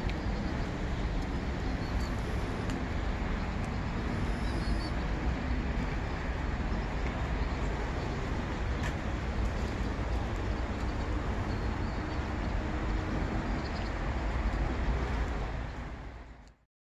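Steady outdoor background noise with a strong low rumble and a few faint high chirps, fading out about a second before the end.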